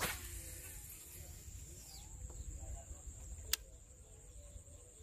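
A cast with a baitcasting rod and reel: a quick swish as the rod comes forward, then the reel's spool spinning with a high, thin hiss for about two seconds as line pays out. A single sharp click comes a little over three seconds in.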